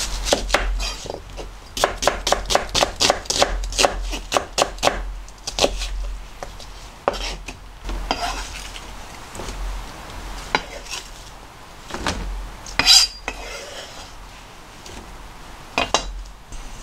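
Kitchen knife slicing an onion on a plastic cutting board: a quick run of knocks, about four a second, as the blade hits the board, then scattered single knocks and the scrape of the slices being pushed across the board.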